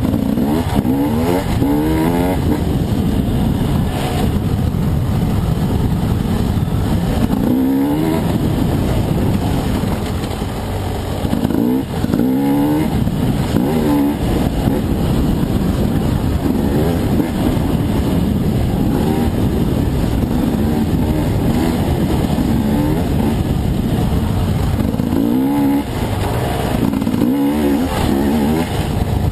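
Husqvarna dirt bike engine ridden under load, revving in repeated rising surges as the throttle is opened and easing off between them, with brief dips about ten seconds in and again near the end.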